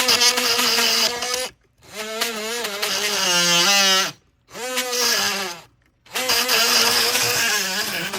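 Dremel rotary tool with a fine tip running in four short bursts, its high whine sagging in pitch under load as it cuts at the nails holding the siding.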